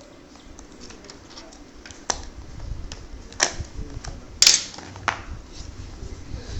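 Cardboard phone box being opened and handled by hand: a scatter of sharp clicks and taps, the loudest about four and a half seconds in.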